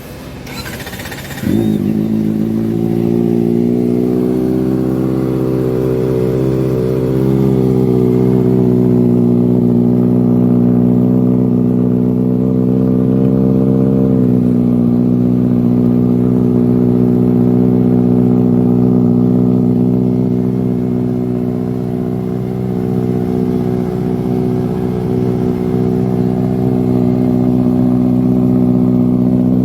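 Kawasaki ZX4RR inline-four motorcycle engine running at a steady speed through its exhaust. It comes in suddenly after a brief burst of noise, rises a little in pitch over the first couple of seconds, then holds an even note.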